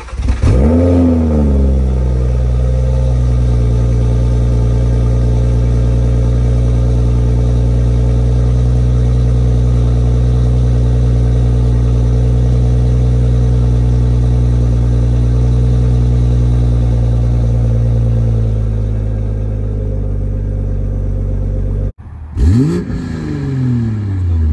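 BMW M340i's 3.0-litre turbocharged straight-six cold-starting through a Mastery of Art & Design catback exhaust with downpipe: a sharp flare in revs lasting about a second, then a steady high cold idle that eases slightly lower later on. About 22 seconds in it changes to a short rev in comfort mode, its pitch falling away.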